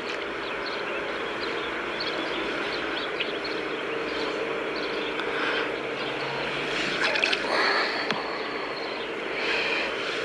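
Steady outdoor background noise, with a few short clicks and rustles about seven seconds in and again near the end from handling and unhooking a crappie.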